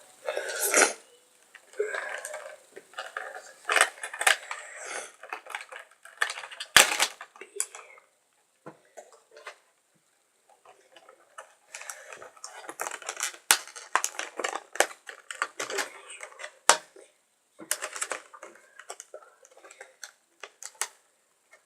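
A headset and its packaging being handled and unpacked: irregular clicks and knocks with stretches of rustling, and a pause of a few seconds about eight seconds in.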